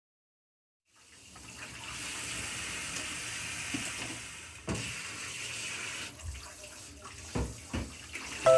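Kitchen tap running steadily into a sink, with a few sharp knocks of things being handled in it.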